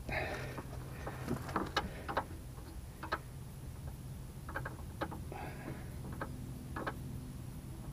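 Irregular light metallic clicks and clinks, with a couple of brief scrapes, as the metal hanger bracket, bolts, nuts and washers of a motorhome water tank are handled and fitted. A steady low hum runs underneath.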